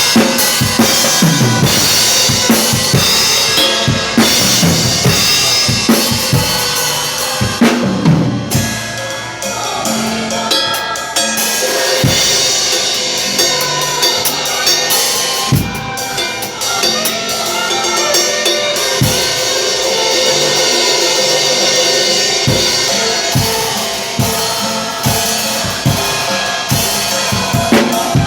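Drum kit played along with a recorded gospel worship song. The drum hits are dense for the first eight seconds or so, sparser through the middle, and busier again near the end.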